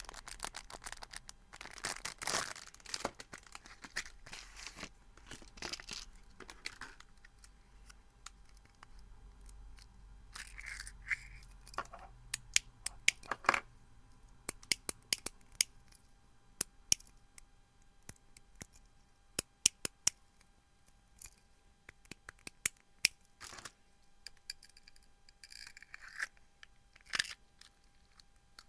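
Rustling and tearing for the first several seconds, then plastic clicker fidget toys clicking: many sharp, irregular clicks, some single and some in quick runs.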